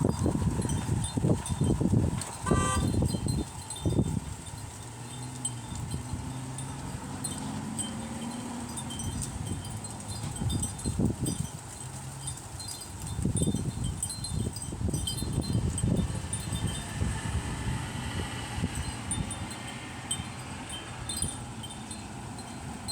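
Gusty dust-storm wind buffeting the microphone, strongest in the first few seconds and again about two-thirds of the way through, with faint scattered high ticking throughout.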